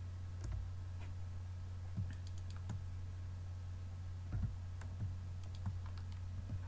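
Computer keyboard keys and mouse buttons clicking: about a dozen single, irregularly spaced clicks over a steady low hum.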